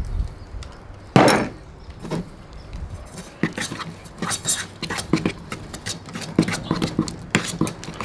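A spoon stirring honey butter (softened butter, honey, brown sugar and cinnamon) in a double-walled camp bowl: a quick, irregular run of light clicks and knocks of the spoon against the bowl from about three seconds in. One louder single knock about a second in.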